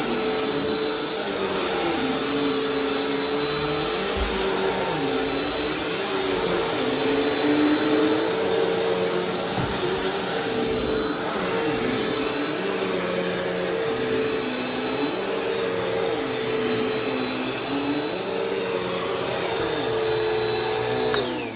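Bissell vacuum cleaner running on carpet, a steady motor whine whose lower pitch dips and rises every two seconds or so as it is worked over the floor. It is switched off near the end and its motor winds down with a falling whine.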